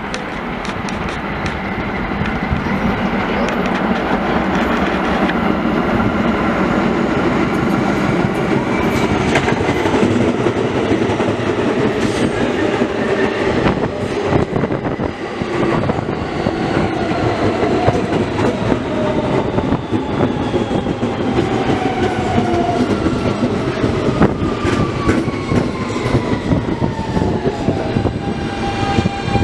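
New York City subway train pulling into the station close by, its wheels clacking over the rail joints under a steady rumble. In the second half its motor whine falls in pitch as the train slows to a stop.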